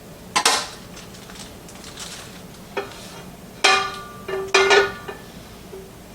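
Metal cookware and utensils knocking and clinking, about six separate strikes, the later ones ringing on briefly with a clear metallic tone.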